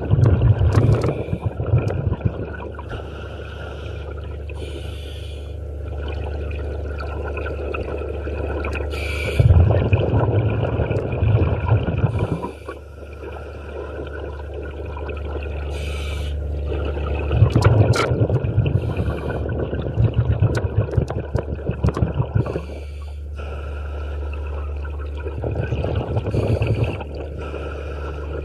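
Scuba diver breathing through a regulator underwater: exhaled bubbles gurgle and rumble loudly in bursts every eight seconds or so, with quieter inhalation through the regulator in between.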